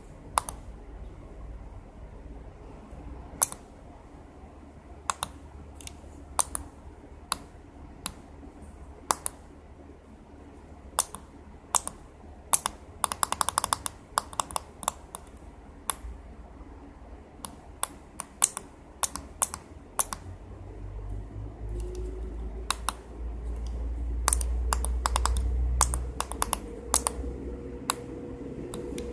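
Sharp clicks, one at a time and in quick runs, from tactile pushbuttons being pressed and the relays of an 8-relay module switching the effect loops of a DIY Arduino MIDI switcher. A low rumble rises in the background during the last third.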